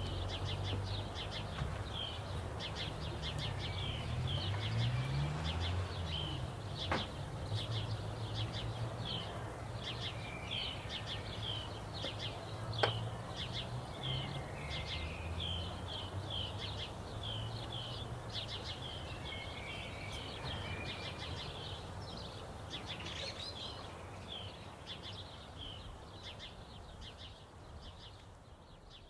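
Birds chirping busily over a steady low background rumble, with a couple of faint clicks; the ambience fades out near the end.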